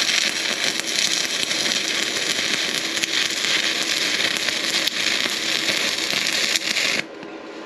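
Stick-welding arc from a Simder SD5010 Pro multi-process welder set to about 86 amps, crackling steadily as the electrode runs a weld on a steel tube. The arc breaks off suddenly about seven seconds in.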